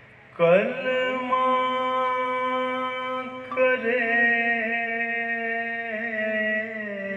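A man's voice chanting in long, drawn-out melodic notes, starting about half a second in, with a fresh phrase about three and a half seconds in.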